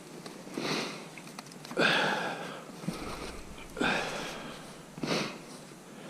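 A person breathing hard, with four loud breaths a second or two apart.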